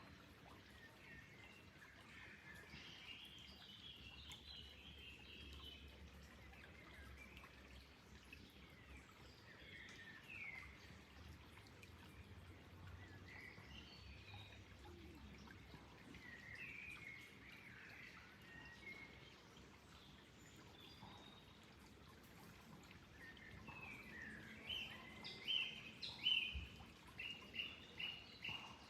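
Faint birdsong from several birds, scattered chirps and short trills over a low steady background noise. Near the end one bird repeats a short note about three times a second, louder than the rest.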